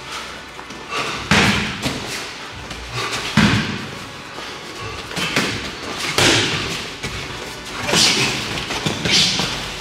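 Heavy thuds of strikes landing during MMA sparring, punches and kicks hitting bodies and gloves, about five blows spaced a second or two apart.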